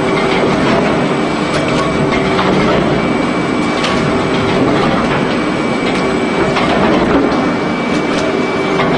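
Industrial shredder-type meat grinder with rows of toothed cutter discs running: a loud, steady mechanical rattle with a thin steady whine and a few sharp clicks.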